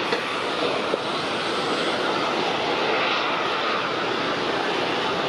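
Boeing 747-400 freighter's four jet engines at takeoff thrust as it lifts off and climbs: a loud, steady roar.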